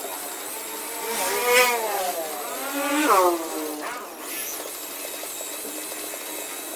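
Electric machine polisher running, its motor pitch dipping and rising a few times in the first half, then running steadier.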